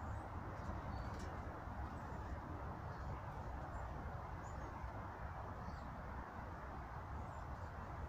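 Faint, short high chirps from small birds scattered over a steady low background rumble.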